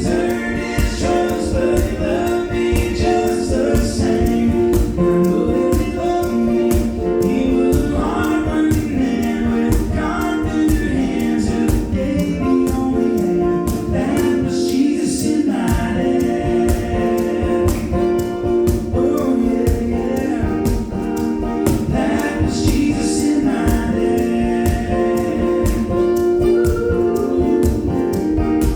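Gospel song with several voices singing together over a band with a steady beat.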